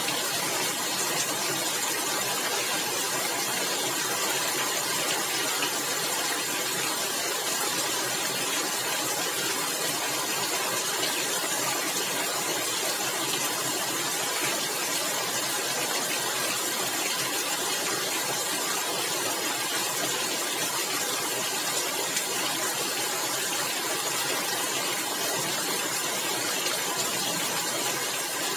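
Heavy rain falling on roof tiles, a dense, steady hiss with no single drops standing out.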